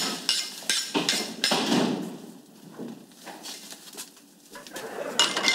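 Metal utensils clattering and knocking: a rapid run of strikes for about the first two seconds, then a few scattered knocks, with louder clatter again near the end.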